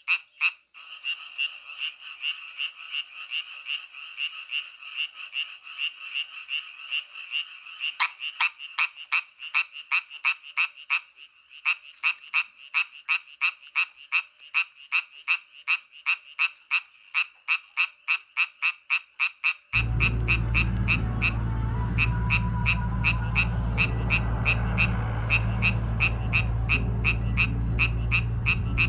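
Frog chorus: rapid, evenly repeated croaking calls, about two or three a second, with a denser layer of calls in the first several seconds. About two-thirds of the way through, a steady low rumbling noise cuts in abruptly and continues under the calls.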